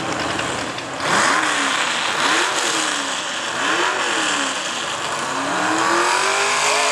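V8 hot rod pulling tractor's engine idling, then blipped in three short revs and a longer, higher rev near the end, at the start line waiting for the pull.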